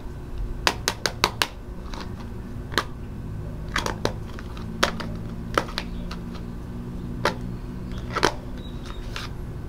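Sharp, irregular clicks and taps over a low steady hum: a quick run of four about a second in, then single ones every second or so.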